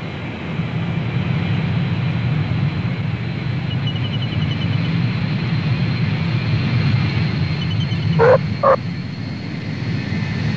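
Lockheed C-141 StarLifter's four turbofan jets as the transport comes in, touches down and rolls out on the runway: a steady low rumble with a faint high whine over it. Late on, two brief sharp calls about half a second apart.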